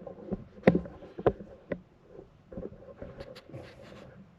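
A few sharp knocks and clicks of handling, the loudest about two-thirds of a second in, then two more within the next second and a faint cluster of ticks near the end.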